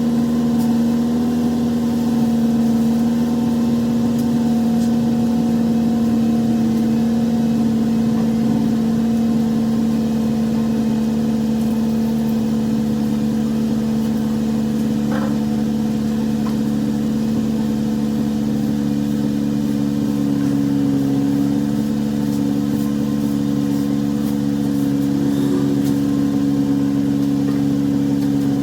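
2004 Honda Civic Si's K20 four-cylinder engine running steadily with fresh oil in the crankcase, its pitch rising slightly twice in the second half.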